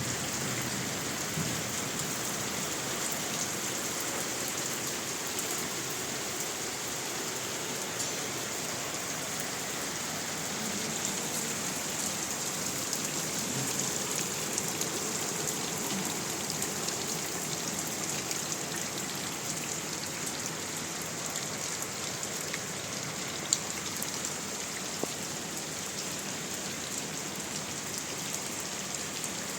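Heavy rain falling steadily: an even hiss with scattered sharper drop ticks, and one louder tick a little past three-quarters of the way through.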